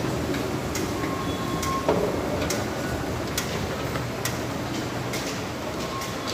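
Steady low rumble and hum of an underground metro station, with footsteps clicking on the hard floor about once a second and a few faint short beeps. The hum eases off after about five seconds.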